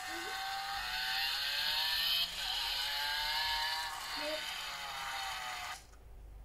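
Battery-powered toy sports car playing its electronic engine-revving sound effect through a tiny speaker, the pitch rising and falling. It cuts off suddenly about six seconds in.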